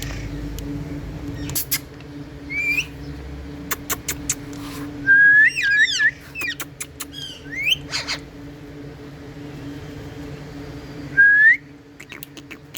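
Pet Indian ringneck parrots whistling: short rising whistles and a few chattering calls, the loudest about five seconds in and again near the end, with sharp clicks scattered between. A steady low hum runs underneath.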